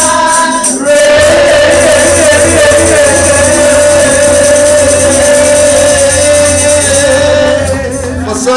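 Live singing to acoustic guitar: a voice holds one long note from about a second in until near the end.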